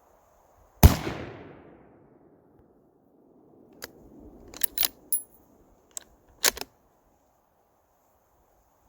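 A single shot from a Thompson Center Compass II Compact .223 bolt-action rifle about a second in, its report dying away over about a second. A few seconds later comes a quick run of sharp clicks and clacks as the bolt is worked to eject the case and chamber the next round.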